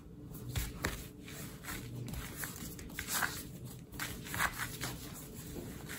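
Hands kneading a log of soft pastry dough on a countertop: quiet, irregular pressing, rubbing and shuffling strokes.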